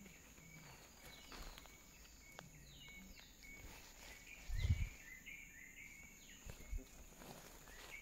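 Forest birds calling: many short chirps and falling whistled notes, over a steady high-pitched whine. A dull low thump comes about halfway through, with a softer one a couple of seconds later.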